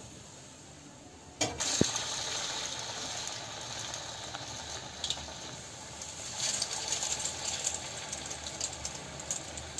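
Urad dal (minapa) vada batter frying in a pan of hot oil: a sudden sizzle starts about a second and a half in, with a light knock just after, and runs on with steady crackling bubbles, growing louder again past the middle as more batter goes in.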